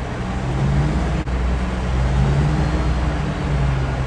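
Steady engine hum and road noise from a moving vehicle, heard from inside.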